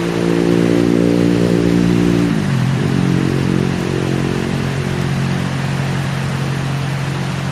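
A motor vehicle's engine runs over steady heavy rain. Its pitch drops sharply about two and a half seconds in, then holds steady at a lower note.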